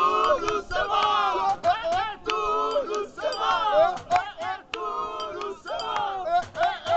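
A small group of people's voices, loud and overlapping: several shouting and singing at once.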